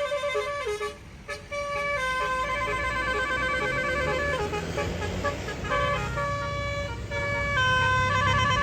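Basuri telolet bus horn playing a tune of held notes that step up and down, broken by a short gap about a second in. A bus engine rumbles underneath, louder near the end.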